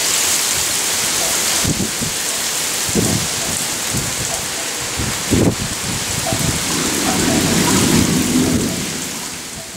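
Heavy monsoon rain pouring steadily, with short low rumbles of thunder a few times and a longer roll of thunder about seven seconds in; the sound fades away at the end.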